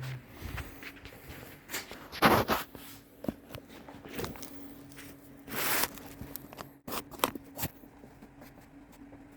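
Footsteps with scattered knocks and scuffs of handling, including two louder rasping noises about two seconds and five and a half seconds in, over a faint steady hum.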